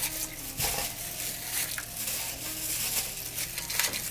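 Beef bones being lowered by hand into a large stockpot of water and spices, the water sloshing and splashing with scattered clicks and knocks.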